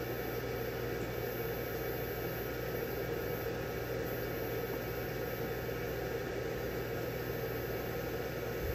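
Steady background hum and hiss with no change through the stretch, and a soft low bump at the very end.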